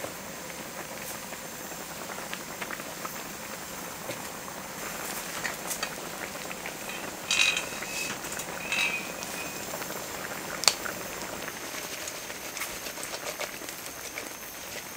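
Steady hiss of rain falling, with scattered drip ticks. A couple of brief ringing clinks come a little past the middle, and a sharp tap about two-thirds through.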